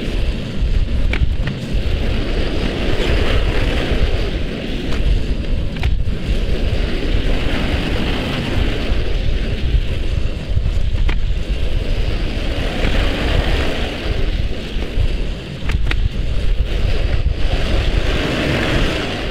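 Farm tractor engine running, its sound swelling and easing every few seconds as it works, with a few light clanks.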